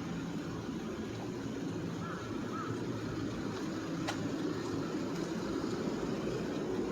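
Steady city street background with a low mechanical hum, like traffic or machinery, and a single sharp click about four seconds in.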